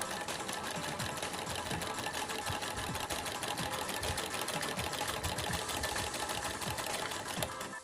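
Domestic shuttle-type sewing machine stitching at a steady speed, a rapid, even clatter of needle and shuttle strokes. It is a test run after the needle and shuttle were reset to cure skipped stitches, and the stitching is forming correctly.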